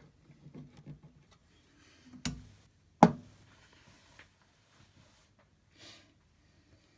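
Scattered clicks and knocks from working a valve tester and seating a valve, with a firm knock a little past two seconds in and a sharp, louder click about three seconds in.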